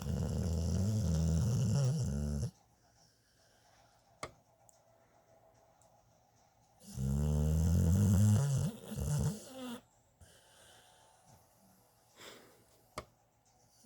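Snoring: two long, low snores about seven seconds apart, each lasting about two and a half seconds, with quiet breathing between.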